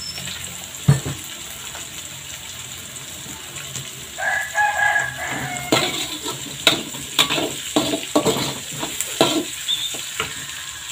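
Shallots, garlic and chilies frying in oil in a wok, with a spatula scraping and knocking against the pan in quick strokes through the second half. A rooster crows once in the background about four seconds in.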